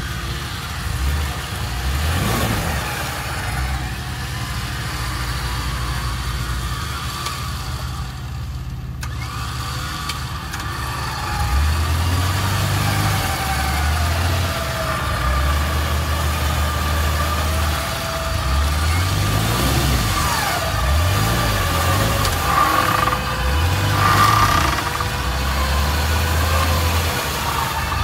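Badlands Apex 12,000 lb electric winch pulling a 2001 Nissan Xterra forward out of a muddy rut, its motor whine wavering up and down in pitch under load, over the truck's engine running. The low engine rumble grows louder about a third of the way in.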